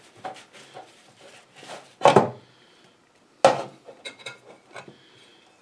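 A cast engine part being wiped with a rag in a metal tray of degreaser: light scrapes and clicks, two louder knocks of the part against the tray about two and three and a half seconds in, then a few short ringing clinks.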